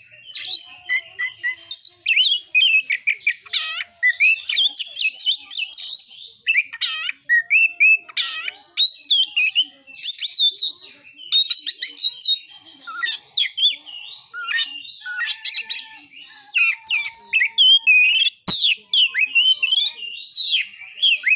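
Oriental magpie-robin (kacer) singing continuously in a fast, varied run of whistles, chirps and quick trills. A single sharp click comes near the end.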